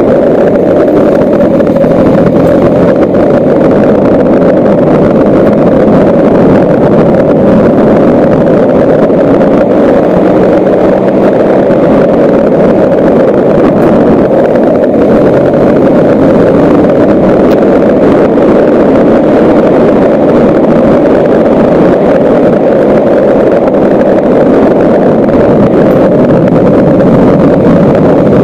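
Motorcycle engine running steadily while riding, its drone shifting a little in pitch, mixed with wind and road noise.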